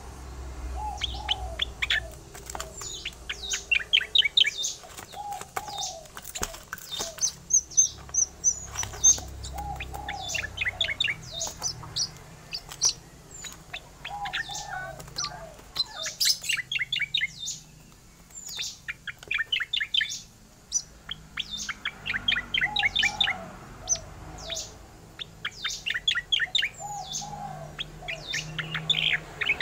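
Striated grassbird (cica koreng) singing its rolling song: phrases of very fast trilled high notes repeated every few seconds, with shorter lower notes between them.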